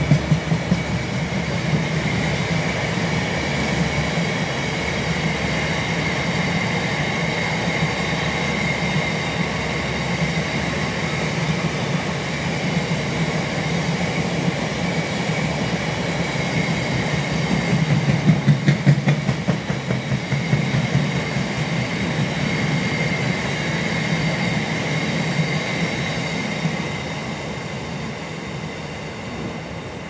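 A long rake of loaded freight box wagons rolling past on jointed track, with a steady wheel rumble and a steady high whine over it. About eighteen seconds in there is a quick run of loud clatters, and near the end the sound fades as the tail of the train draws away.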